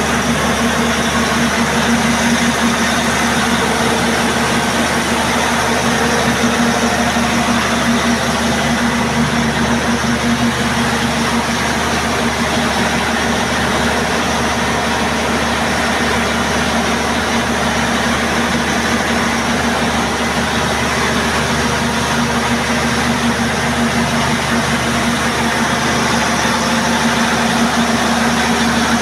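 Perkins 2306 six-cylinder turbodiesel generator engine running steadily at constant speed: a loud, even drone with a strong steady hum and no change in pitch.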